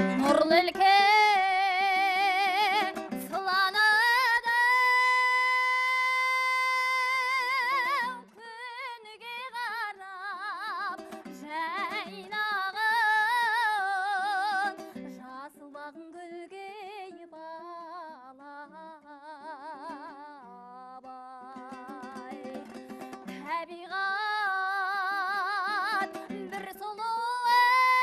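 A high solo voice sings a wordless melody with a wide, wavering vibrato. Long held notes alternate with quick ornamented runs, in a Kazakh folk singing style.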